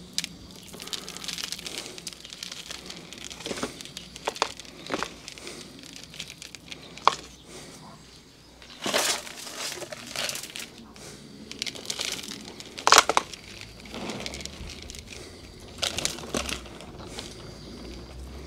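Potting soil mixed with clay pellets being tipped into a plastic pot and pressed down by gloved hands: irregular rustling and crunching, with a few louder knocks.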